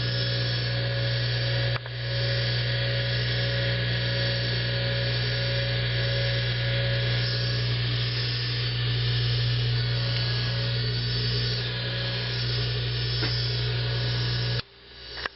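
Bench lathe's two-speed single-phase induction motor running with a loud, steady electrical hum and whine. There is a click and brief dip about two seconds in, and the sound cuts off sharply near the end.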